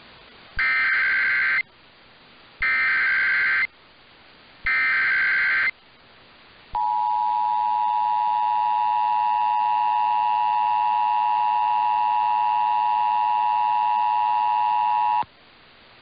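Emergency Alert System header received over AM radio: three separate one-second bursts of screechy digital data (the SAME header), each followed by a gap of radio hiss, then the steady two-tone attention signal (853 and 960 Hz) held for about eight and a half seconds before it cuts off. This signals the start of a flash flood warning activation.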